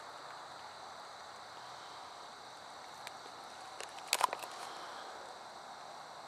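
Paper sky lantern held by hand as it fills with hot air: a faint steady hiss, then a short run of crackling clicks about four seconds in as the tissue paper crinkles.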